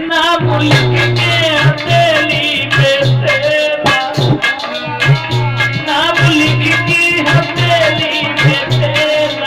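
Hindi folk-style sad song: a wavering melody line over a steady tabla beat.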